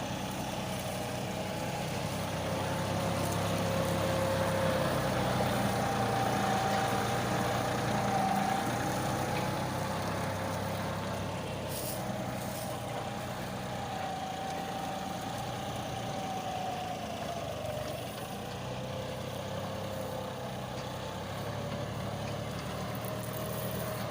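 John Deere tractor's diesel engine running steadily while pulling a plough, with a whine that drifts slightly up and down in pitch.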